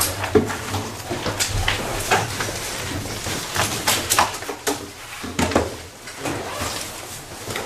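Irregular knocks, clicks and rustling from people packing up their things and moving about in a classroom.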